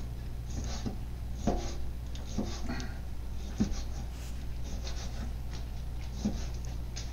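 Chef's knife slicing raw chicken breast on a plastic cutting board: a series of soft scrapes and light taps as the blade draws through the meat and meets the board, over a low steady hum.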